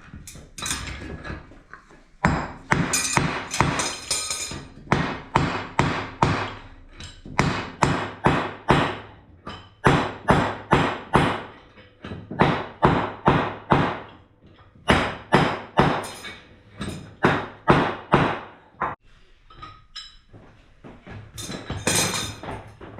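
Blacksmith's hammer striking the forged steel thrust washer on an anvil, in runs of quick, regular blows (about two to three a second) broken by short pauses.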